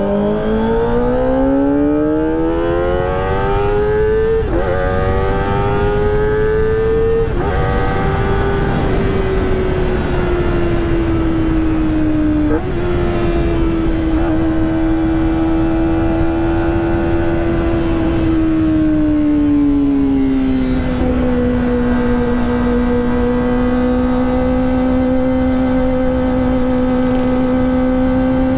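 Kawasaki ZX-25R inline-four running through a Prospeed Shark high-mount exhaust under way. The revs climb steadily for about seven seconds with a couple of brief breaks, then hold high, ease down a step about twenty seconds in and run on level.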